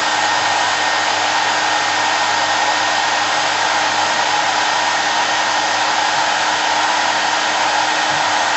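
Nova NHP 8100 1200 W hair dryer running steadily on its hot setting: an even rush of blown air with a faint steady whine from the motor, unchanging throughout.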